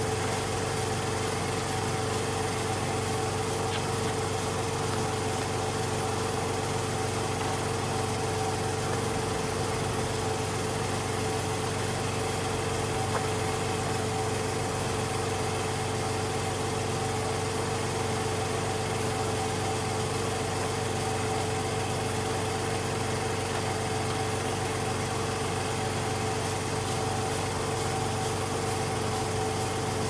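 Small engine-driven machine of a pressure-washing rig running steadily at constant speed, a level drone with a steady hum, while chemical pre-treatment is sprayed through a fan-tip chemical gun.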